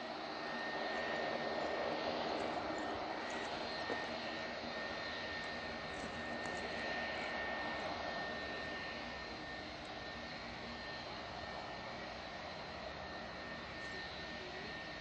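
A Boeing 757-200 airliner's jet engines running at taxi power as it rolls slowly along the runway. It is a steady rumbling roar with a thin, high whine held on one note. It is a little louder in the first few seconds, then eases off slightly.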